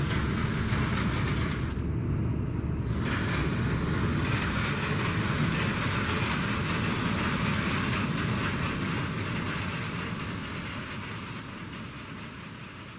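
A steady rumbling noise that fades out over the last few seconds.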